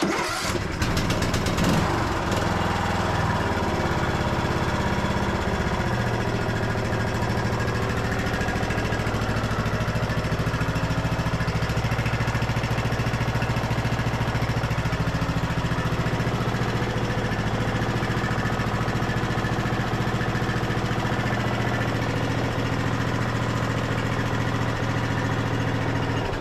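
Briggs & Stratton 17.5 hp single-cylinder OHV engine on a riding mower starting almost at once and running steadily, its first run after a head gasket replacement, then switched off near the end.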